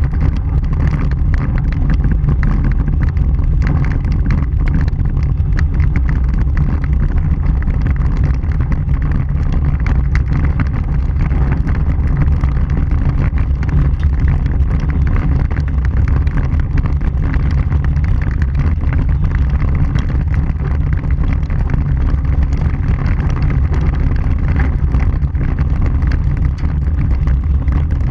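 Vehicle driving on a gravel dirt road, heard from a camera on its front bumper: a steady, loud low rumble of tyres and wind, with many small ticks throughout.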